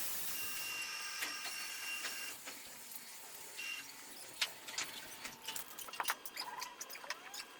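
Frame-saw machinery clicking and ticking, with short squeaks, as a log is held on the saw table.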